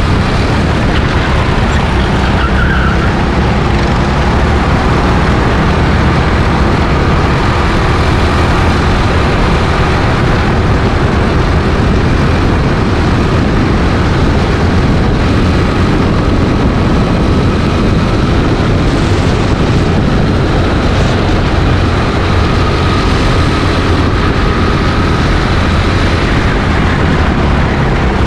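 Go-kart running flat out at about 30 mph, heard from an onboard camera: a loud, steady mix of engine and rushing noise with no let-up.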